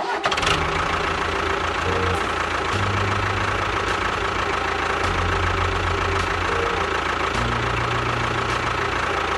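A small machine's motor running steadily, starting abruptly and holding an even pitch, over background music with a stepping bass line.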